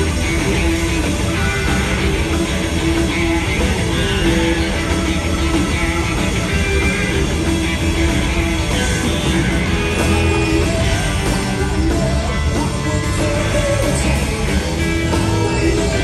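Live blues-rock band playing: two electric guitars, electric bass and a drum kit.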